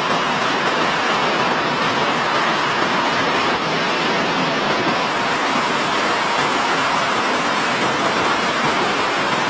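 Steady rushing noise, even in level, with no distinct knocks, tones or voices.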